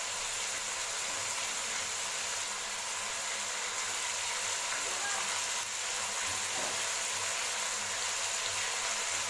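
A steady hiss with no clear rhythm or separate strokes.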